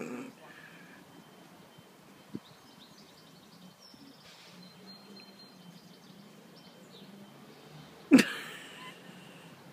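Quiet garden background with faint bird chirps, broken about eight seconds in by one loud, short burst of sound that fades over about a second.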